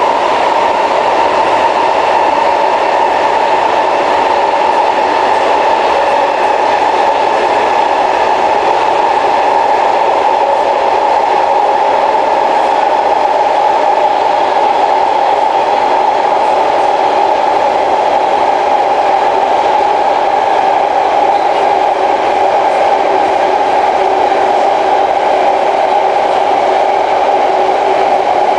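Cabin noise of an SMRT C151 metro train car running on the line: a steady loud rush and rumble with a whine that sinks slowly and slightly in pitch.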